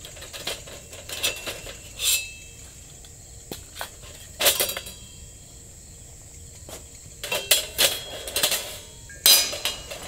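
Metal clanking and clinking as tongs, a grill grate and a frying pan are handled on a hexagonal metal fire pit. There are sharp strikes in several clusters, some ringing briefly, and the loudest comes just after nine seconds.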